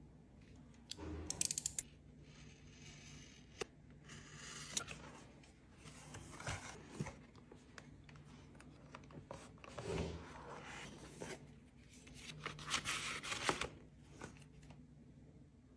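Cardboard and plastic packaging being handled and opened: irregular rustling, scraping and tearing with a few sharp clicks, loudest about a second in and again near the end.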